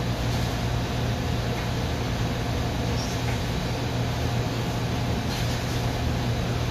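Commercial kitchen exhaust hood fan running, a steady rush of air over a constant low hum.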